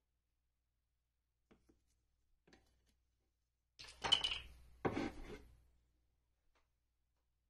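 Kitchen handling noise at a glass blender jar: a few faint knocks, then two short clattering, rubbing bursts about four and five seconds in. The blender motor is not running.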